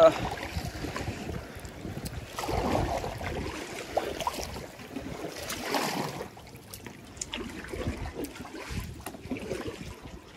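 Water splashing and lapping around a kayak, with wind buffeting the microphone, in soft irregular swells that ease off about halfway through.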